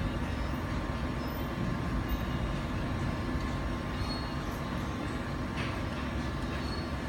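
Steady whir and hum of a BGA rework station's fans and hot-air blower running.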